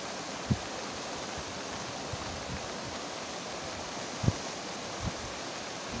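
River water rushing steadily through a gap in a stone-and-stake fish weir. A few soft low knocks sound over it, the clearest about four seconds in.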